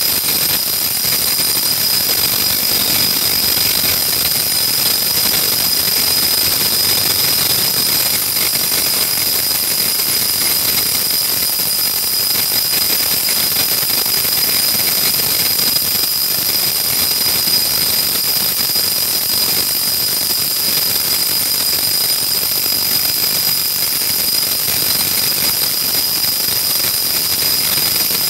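Bosch RH540M rotary hammer running steadily, its motor giving a constant high-pitched whine over an even buzz.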